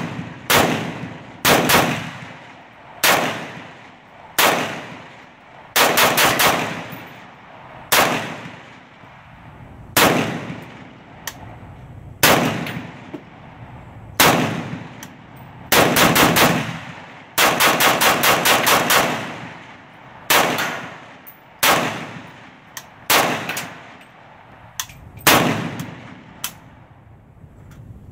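Century Arms C39V2 milled AK-pattern rifle in 7.62×39 firing dozens of shots. Some shots come a second or two apart and others in quick strings, and each crack has a short fading echo.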